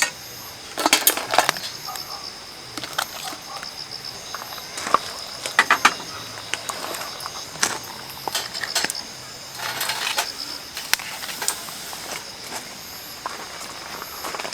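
Scattered clicks and short bursts of light clatter from camp cookware and utensils being handled, over a steady high-pitched chirring of insects.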